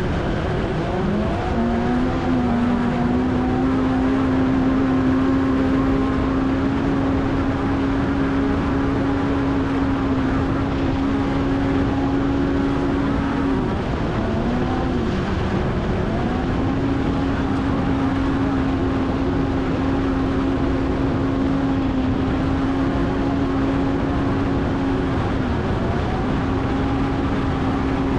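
Off-road race vehicle's engine running hard at steady high revs through a lap, dropping off briefly twice, about halfway through and near the end, before picking straight back up.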